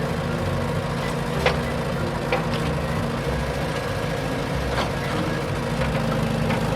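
Radio-controlled construction truck running with a steady engine-like hum, with a few sharp clicks now and then.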